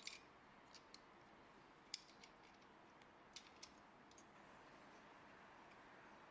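Light clicks and taps of small parts of a cast-iron wine corker being handled and fitted, about eight scattered clicks in the first four seconds, the loudest about two seconds in, over near-silent room tone.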